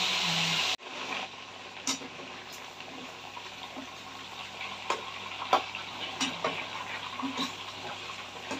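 Chicken gizzards frying in oil in a pan, stirred with a spatula: a steady sizzle with scattered clicks and scrapes of the spatula against the pan. A louder hiss at the start cuts off suddenly under a second in.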